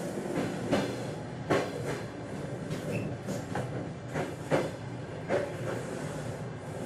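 Train wheelsets knocking over the rail joints, a sharp knock about once a second over the steady rolling rumble of the moving train.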